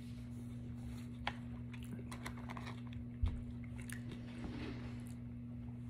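Mouth sounds of a man chewing a mouthful of spicy brisket sandwich, with small wet clicks and crunches, and a curly fry bitten into about four seconds in. A single low thump comes a little after three seconds, over a steady low electrical hum.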